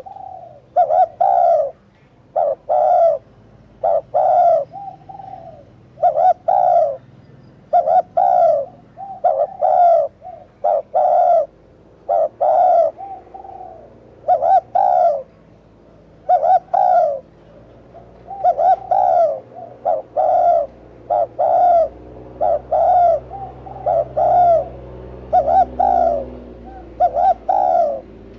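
Spotted dove cooing over and over: short coos repeated about once a second, often in close pairs.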